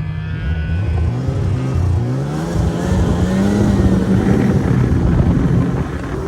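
Snowmobile engine revving and running under way, its pitch stepping and climbing as the throttle changes.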